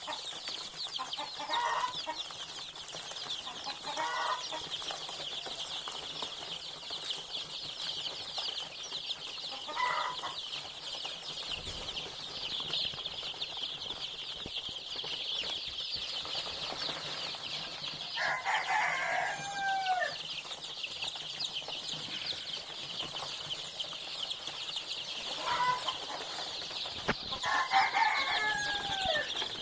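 Dozens of young chicks peeping continuously, their many high chirps overlapping into a steady chorus. A few lower, louder calls break through now and then, the longest about two-thirds of the way in and near the end.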